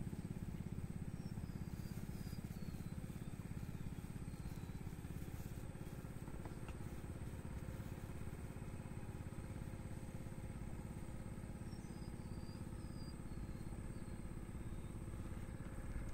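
A small engine running steadily with a low, even drone. A bird twice gives a short run of falling chirps, near the start and again about twelve seconds in.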